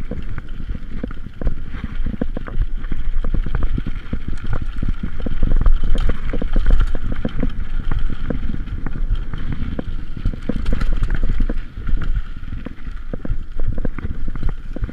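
Mountain bike clattering over a rough dirt and gravel trail: a dense, irregular run of knocks and rattles from the bike and camera jolting on the bumps, over a low rumble.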